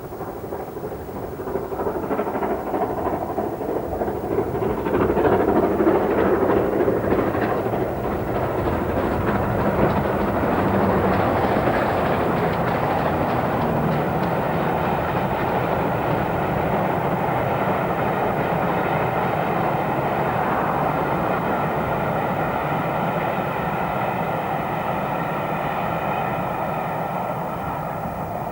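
Great Western Hall-class 4-6-0 steam locomotive Burton Agnes Hall hauling a passenger train past. The noise builds over the first few seconds as the engine draws near, then the train's running and wheels on the rails carry on steadily as the carriages roll by.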